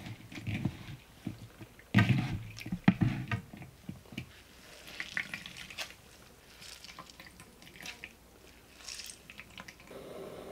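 Salted, julienned golden zucchini squeezed hard by hand in a glass bowl: wet squelching with water dripping and splashing back into the bowl, in irregular bursts, loudest about two to three and a half seconds in.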